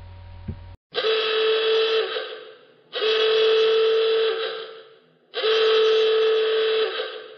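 Three long, loud horn-like blasts at one steady pitch, each lasting a second and a half to two seconds and fading out, with short gaps between them.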